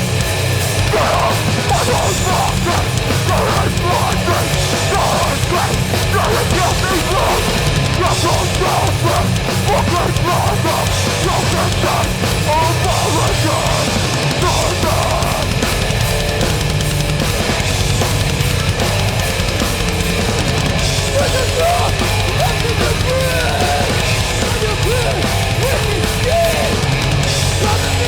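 Metallic hardcore band playing live at full volume: heavy distorted guitars, bass and drums.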